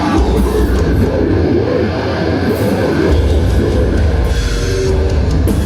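Heavy metal band playing live, with distorted guitars over a drum kit and a heavy, continuous low end.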